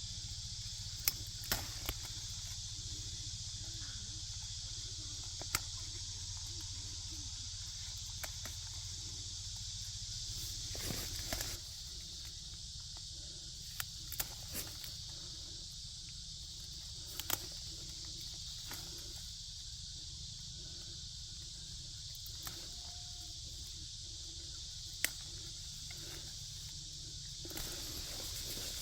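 A steady, high-pitched cicada chorus, loud on a very hot day, over the sharp snaps of chili peppers being picked off their stems and the rustle of the pepper plants, with scattered clicks throughout.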